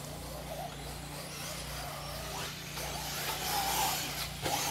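Radio-controlled off-road race cars running on a dirt track, their motors whining faintly and rising and falling in pitch, over a steady low hum.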